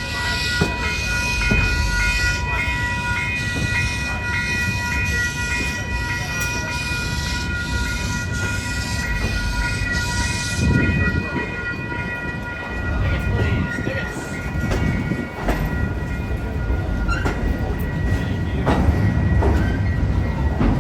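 Steam train No. 1309 running, with a steady ringing chord of several tones that pulses regularly over a hiss and cuts off about ten seconds in. After that come low rumbling and scattered clanks of the train.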